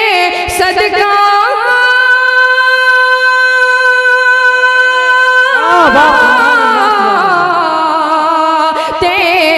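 A man singing a naat unaccompanied into a microphone. He holds one long, steady note on the word "sadqa" for about four seconds, then lets it waver and slide down in pitch.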